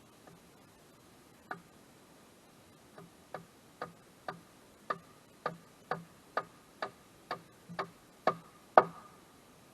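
A run of sharp ticks, about two a second, getting louder toward the end and stopping just before it.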